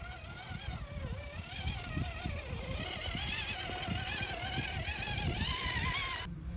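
Small electric motor of an RC scale crawler truck whining, its pitch wavering up and down with the throttle, over a low rumble. The sound cuts off suddenly near the end.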